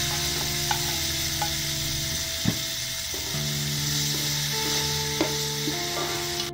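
Diced mixed vegetables (carrot, corn, green peas) sizzling in hot ghee in a metal pot, with a slotted spatula scraping and tapping the pot a few times as they are stirred. Soft background music plays under it.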